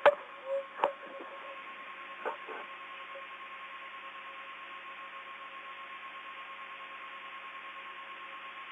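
Open radio voice channel between the Soyuz crew and mission control with no one talking: a few short clicks in the first couple of seconds, then a steady hiss with a faint steady whistle tone through it.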